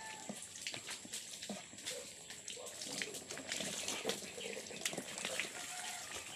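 Water splashing and trickling in a container that a hose runs into, an uneven run of splashes and drips.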